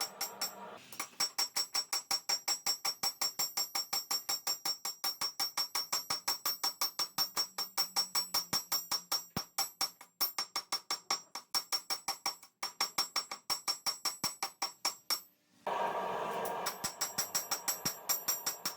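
Hammer striking steel on an anvil in a fast, even run of ringing metallic blows, about five a second, as a knife blade is forged. Near the end the blows stop for a moment, a brief rushing noise is heard, and then the hammering resumes.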